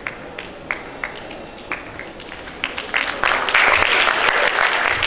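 Audience applauding: a few scattered claps at first, swelling into full applause about three seconds in.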